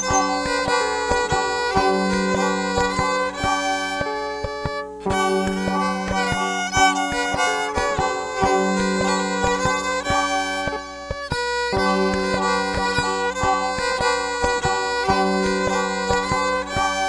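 Instrumental background music: layered, sustained notes over a low note that recurs every few seconds.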